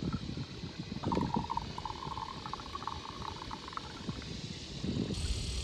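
Liquid glugging out of a glass bottle as it is poured into the hole of a drilled coconut, over a low rumble of wind and boat noise.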